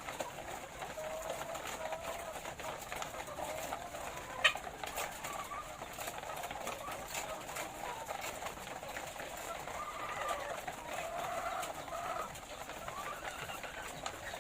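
A flock of laying hens making steady low, murmuring calls. Scattered small clicks run throughout, and there is one sharp knock about four and a half seconds in.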